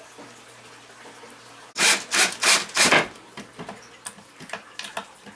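Four quick, rough scraping strokes in a row, then lighter scrapes and small taps, from hand work on a wooden walking stick.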